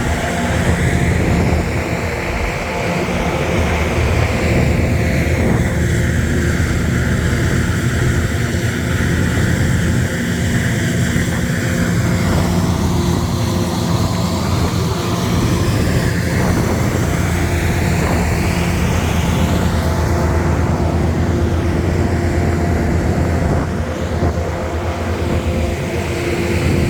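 Aircraft engine noise, loud and continuous: a heavy rumble with steady tones, and a hiss whose tone sweeps slowly up and down around the middle, as from an aircraft moving nearby.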